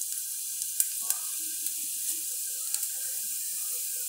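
Cumin seeds sizzling in hot cooking oil: a steady frying hiss with a few sharp pops and crackles.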